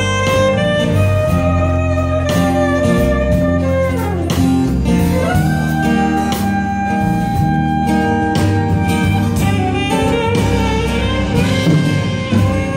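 Live band playing amplified through a club PA: saxophone holding long notes over acoustic guitar and drums, with a falling bend about four seconds in and a long steady note after it.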